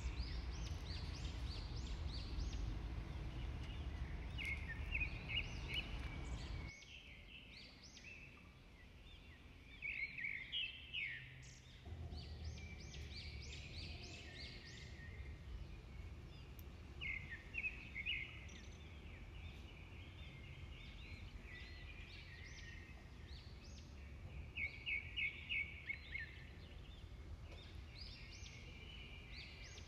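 Small birds chirping throughout, short high notes with some quick runs of several chirps, over a low outdoor background noise that drops away abruptly about seven seconds in.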